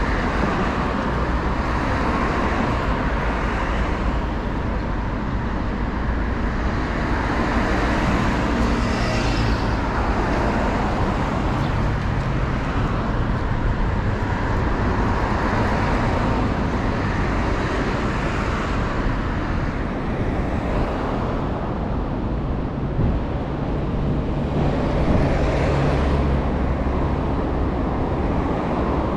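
Road traffic on a busy street: a continuous rumble of cars going by, swelling as nearer vehicles pass.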